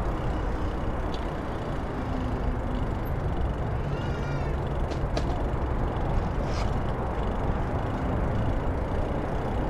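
Steady wind rush and rolling noise on the microphone of a camera riding along on a moving bicycle, with a few faint ticks.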